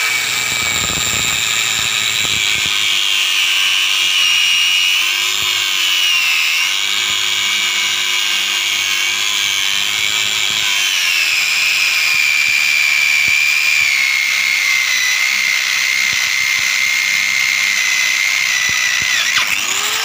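Angle grinder grinding the welded steel frame of a homemade C-clamp, a steady loud whine that sags in pitch as the disc bears on the metal. Near the end the disc comes off the work and the motor speeds back up, the pitch rising.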